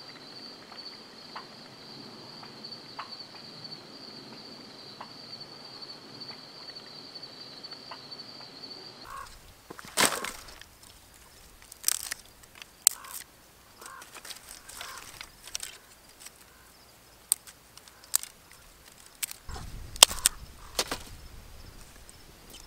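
A night insect's steady high-pitched trill, which cuts off abruptly about nine seconds in. Then scattered sharp snaps and cracks of dry twigs being broken by hand for kindling, the loudest about ten and twenty seconds in.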